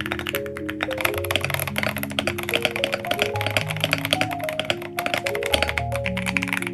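Continuous fast typing on a mechanical keyboard with Akko V3 Creamy Purple Pro tactile switches: many rapid, slightly clacky keystrokes, over background music.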